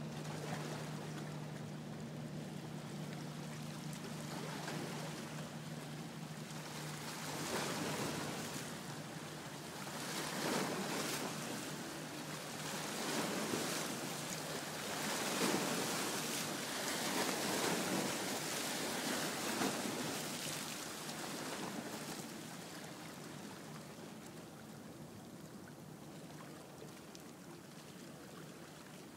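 Small waves washing and lapping at the water's edge, swelling and falling every few seconds before easing off near the end. Under the start a low, steady engine-like hum stops about seven seconds in.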